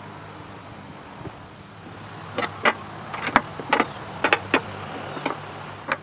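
Hammer tapping a nail into wood: about ten quick, sharp, unevenly spaced strikes over a low steady hum.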